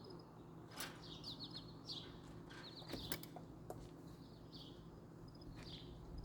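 Small birds chirping: short high calls repeated about once a second, over a low steady hum, with a few faint sharp clicks about a second in and around three seconds in.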